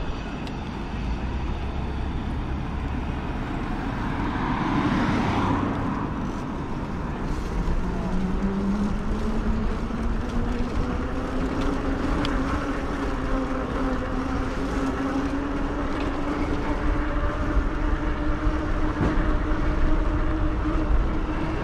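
Electric bike hub motor whine, climbing slowly and steadily in pitch for more than ten seconds as the bike picks up speed, over a steady bed of wind and road noise. A brief swell of noise comes a few seconds in.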